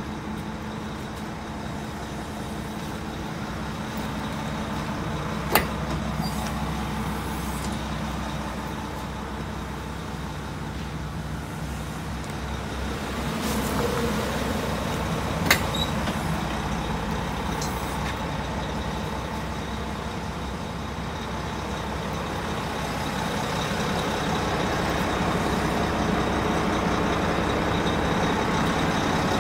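Isuzu Gala coach's diesel engine idling steadily, growing a little louder toward the end, with two sharp clicks, about five and fifteen seconds in.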